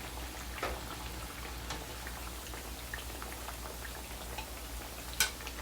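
Chickpea-flour bagia fritters deep-frying in hot oil: a steady sizzle with small crackles, and a couple of light clicks about half a second in and near the end.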